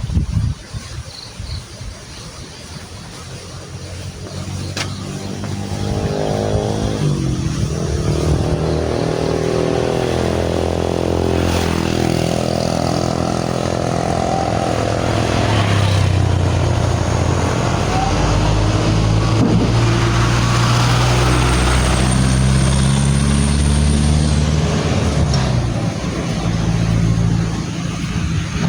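A motor vehicle's engine coming up close a few seconds in, its pitch shifting, then running loud and steady for about fifteen seconds before easing off near the end.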